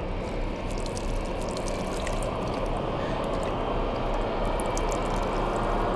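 Water trickling and splashing as hands wring a wet cloth in a basin, a steady sound that grows slightly louder near the end.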